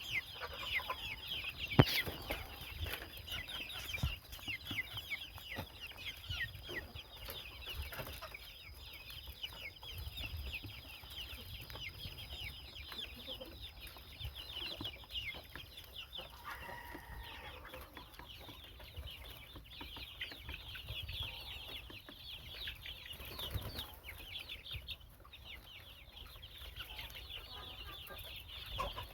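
A flock of chicks peeping continuously, many short high descending cheeps overlapping. A faint steady high-pitched tone runs underneath for the first half and stops about halfway through.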